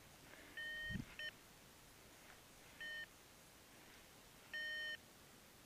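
Electronic beeps: four short, steady, single-pitch beeps at uneven intervals, each under half a second long.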